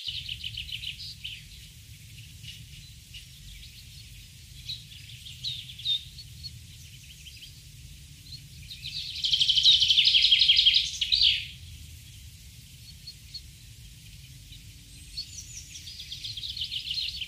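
High, rapid bird chirping in pulsed trills, scattered at first, with a loud burst about nine seconds in and another near the end, over a low steady rumble.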